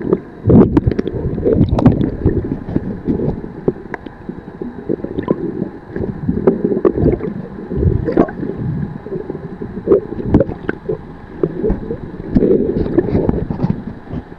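Muffled underwater water noise heard through a submerged camera: low irregular sloshing and gurgling, with scattered short clicks and knocks.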